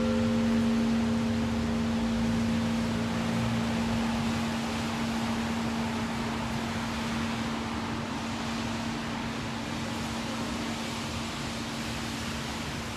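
An old church bell cast in Saratov in 1825 dying away after a single blagovest stroke: its higher partials fade out within the first few seconds while the low hum lingers and slowly decays. No new stroke comes. Steady background noise sits underneath.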